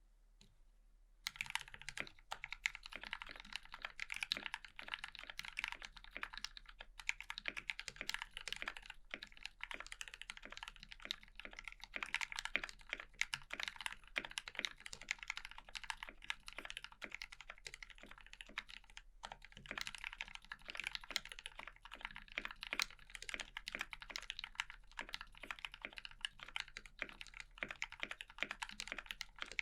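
Continuous fast typing on a mechanical keyboard with lubed and filmed Gateron Ink Black linear switches, a brass plate and GMK Eclipse keycaps: a dense run of keystroke clicks and clacks that starts about a second in, with short pauses twice.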